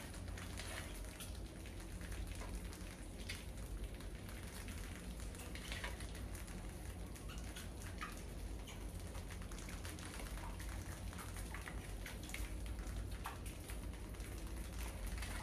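Many rats scurrying over and around a wire-mesh cage trap, their claws making an irregular patter of small scratches and clicks on the mesh and the tiled floor, over a steady low hum.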